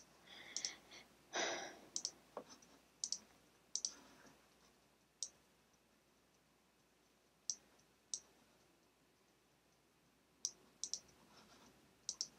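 Faint, sharp single clicks of a computer pointer, a dozen or so at uneven spacing, as shapes are selected and dragged in a drawing program. A softer, longer noise comes about one and a half seconds in.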